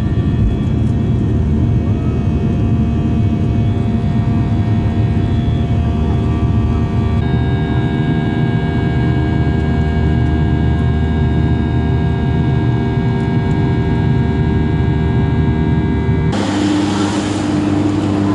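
Boeing 737 airliner's jet engines heard loud from inside the cabin: a deep steady rumble with several steady whining tones, which shift in pitch about seven seconds in. About two seconds before the end it cuts abruptly to outdoor wind noise with a steady low hum.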